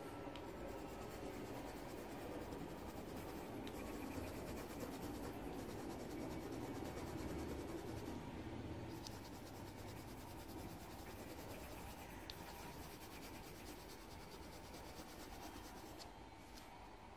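Coloured pencil rubbing and scratching on paper in continuous strokes, with a few faint clicks.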